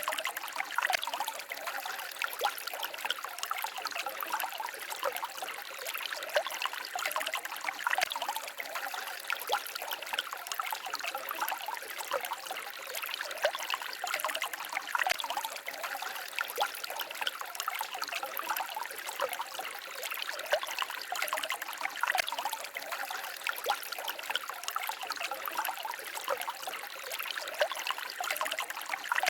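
Small stream babbling and trickling, a steady, even flow of water that is light and bright with no deep rumble.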